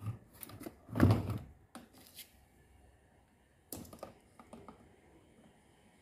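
Sharp plastic clicks and knocks from handling an Indesit condenser dryer's drain pump and pulling off its wire connectors. The loudest knock comes about a second in, with a few lighter clicks around two seconds and again near four seconds.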